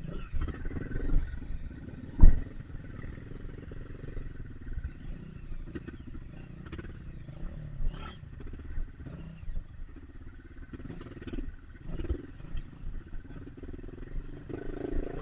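Trail motorcycle engine running at low revs with an uneven, low rumble, with a sharp knock about two seconds in and a few fainter knocks later.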